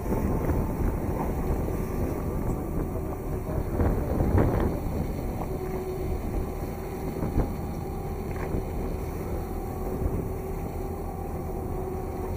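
Motorboat engine running steadily under the rush of water and wind on the microphone, with a brief louder surge about four seconds in.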